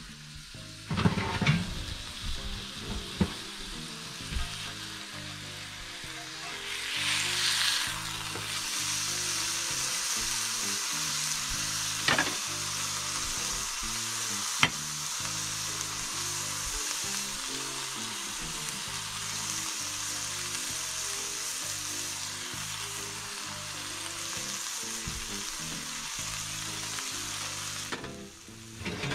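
An 80% ground-beef burger patty sizzling in a cast-iron grill pan: a steady frying hiss. There are a few knocks in the first few seconds and two sharp clicks near the middle, with soft background music underneath.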